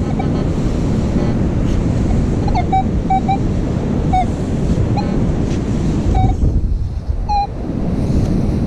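Strong wind buffeting the microphone over beach surf. Short high electronic beeps from a metal detector sound in scattered twos and threes, the target tones of a detector sweeping over buried metal.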